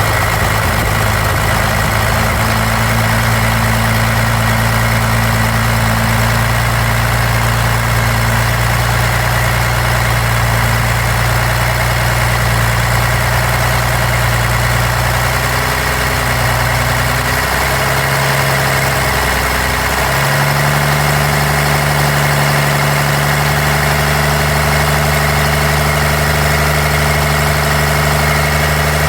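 1993 Dodge D250's 12-valve Cummins inline-six diesel idling with a misfire. The owner suspects the injection pump, since injectors, lift pump, shutoff solenoid and valve lash are done and compression is even. Engine speed rises a little about two-thirds of the way through and holds there.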